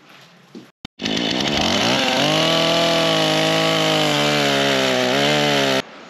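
Husqvarna chainsaw starting loud about a second in, revving up and running at high revs with slight dips in pitch, as in a test cut into wood with a freshly sharpened chain and dressed bar. The sound stops abruptly near the end.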